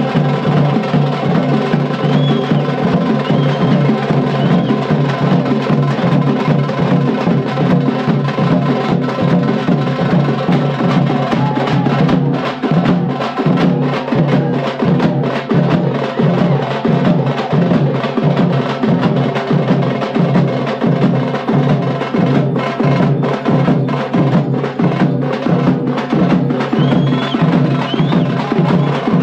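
Live Veeragaase folk ensemble playing: drums and cymbals beating a continuous rhythm over a steady held drone.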